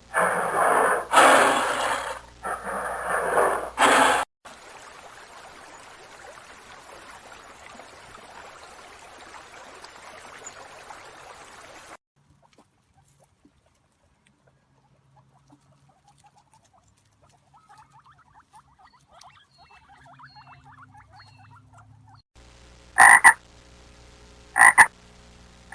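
A run of animal calls. Loud calls about a second apart for the first four seconds, then a steady hiss, a quiet stretch with faint chirping, and two short, sharp calls near the end.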